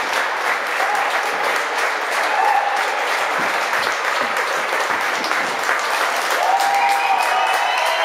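Crowd of spectators applauding steadily in a sports hall, a dense patter of many hands clapping as a bout is won.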